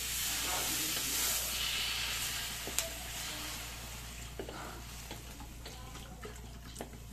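Water poured into a wok of hot oil and fried garlic, shallots and lemongrass, sizzling and hissing, then fading over several seconds as the water cools the pan. A few short clicks sound partway through.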